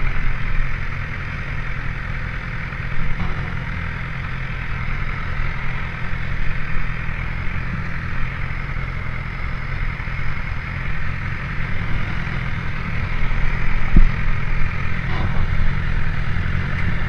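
BMW S1000 XR's inline four-cylinder engine idling steadily with the bike at a standstill. A single knock sounds near the end.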